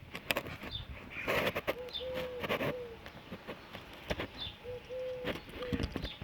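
A bird cooing in a three-note phrase (short note, long held note, falling note), heard twice, with faint high chirps and scattered clicks and knocks.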